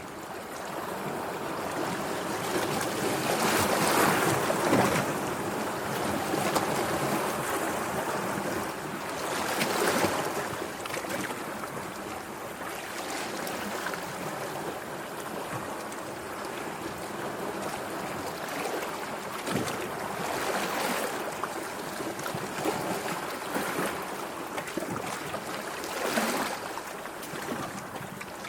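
Sea waves washing in, a steady rush of water with several louder surges swelling and falling back, the strongest about four seconds in.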